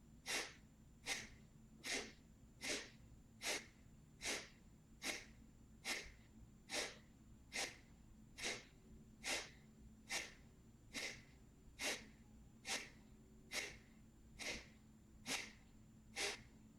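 Kapalabhati breathing: short, forceful exhalations snapped out through the nose at a steady pace of a little over one a second, each a sharp hissing puff, with quiet passive inhalations between. This is part of a round of 25 strokes.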